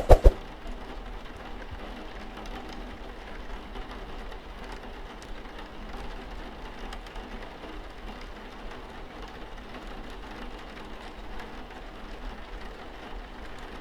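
Steady rain falling, an even hiss with fine scattered patter. Right at the start, two sharp, loud knocks in quick succession.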